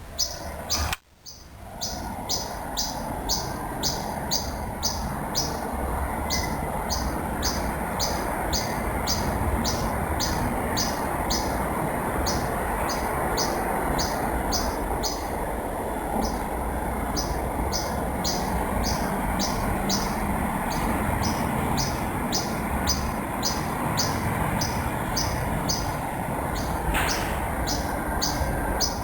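A bird calling in a long, regular series of short high chirps, about three or four a second with brief pauses, over a steady rushing background. The sound drops out briefly about a second in.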